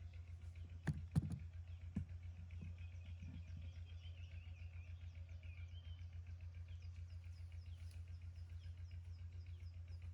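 A steady low hum that pulses rapidly and evenly, with a few sharp knocks about a second in. Later come a faint high wavering tone and short repeated high chirps.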